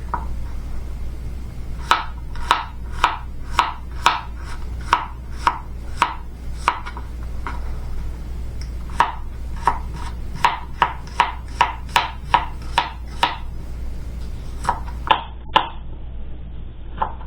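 Knife chopping vegetables on a cutting board: a steady run of sharp knocks about two a second, a brief pause, then more strokes that thin out to a few scattered ones near the end. A low steady hum sits underneath.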